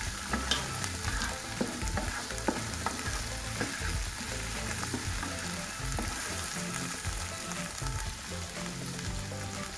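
Chopped onions, tomatoes and green chilies sizzling in oil and ghee in a nonstick pan, stirred with a spatula that scrapes and taps against the pan now and then.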